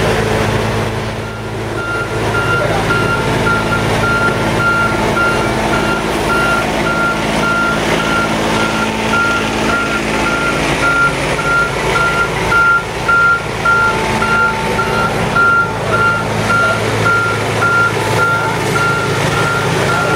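A backup alarm on heavy track-construction machinery beeping over and over at an even rate, over the steady running of the machines' engines.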